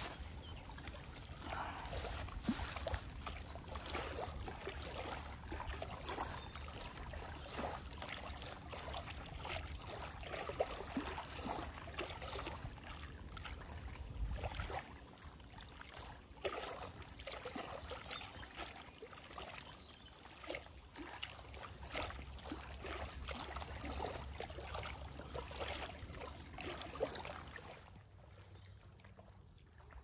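Small lake waves lapping and splashing against the stony shore in irregular little slaps over a low steady rumble, dropping away near the end.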